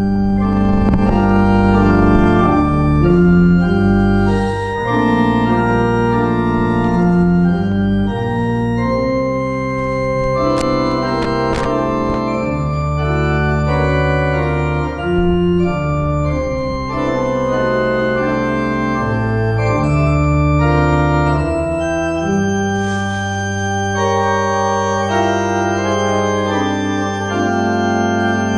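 Church pipe organ playing a short interlude of slow, sustained chords over held bass notes. Near the end it settles on one long held chord.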